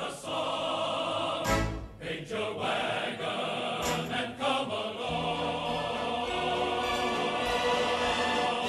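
Film soundtrack music: a choir singing over an orchestra, with a thud or two about a second and a half in.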